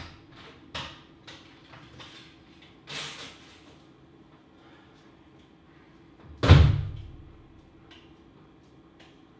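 A few light knocks and clicks, then one loud, heavy thump about six and a half seconds in that dies away over about half a second, over a faint steady hum.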